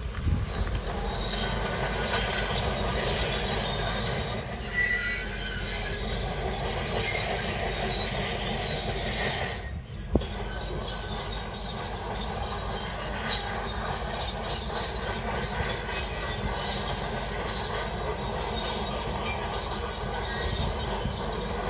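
Shantui DH17 crawler bulldozer working: its steel tracks squeal and clank over the steady running of the diesel engine. About ten seconds in the sound briefly drops away, then there is a sharp click.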